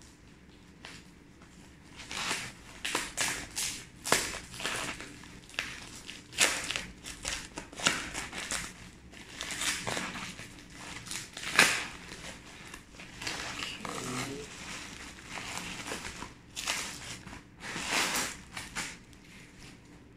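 Plastic mailer bag being opened and handled, crinkling and rustling in irregular bursts that start about two seconds in, the loudest about halfway through.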